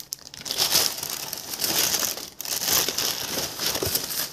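Plastic packaging crinkling and rustling as it is handled and unwrapped, in a continuous irregular stream of crackles.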